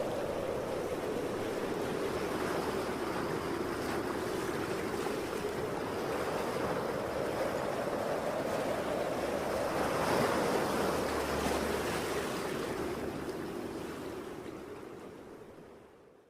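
Ocean waves breaking in a steady rush of surf with strong wind blowing, swelling louder about ten seconds in, then fading out at the end.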